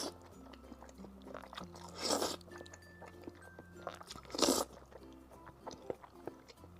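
Close-miked eating: two short, loud mouthfuls of crayfish and noodles being bitten and chewed, about two seconds in and again a little past four seconds. Quiet background music with held low notes plays underneath.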